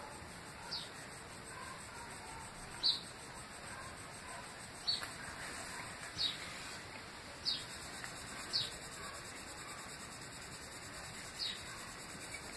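Fingertips rubbing oil paint across a painted board, a soft steady scuffing. Over it a bird gives short, sharp falling chirps, about seven, spaced a second or two apart.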